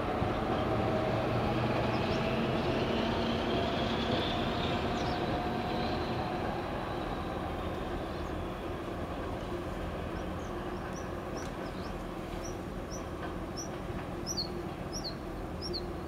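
DR1A diesel multiple unit pulling away under power, its diesel engine running with a whine that rises in pitch over the first few seconds, then slowly fading as the train moves off. Repeated short bird chirps come in over the last several seconds.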